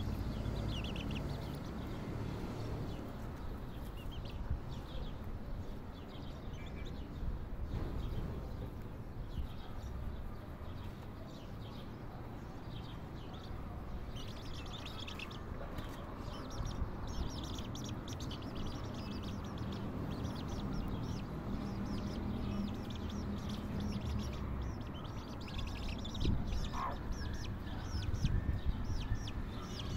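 Young chicks peeping in short, high, repeated calls, more often in the second half, with a hen's low clucks underneath.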